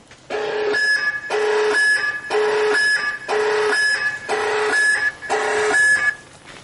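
Electronic two-tone alarm-like sound: a low tone then a high tone, repeated about once a second, six times, then it stops.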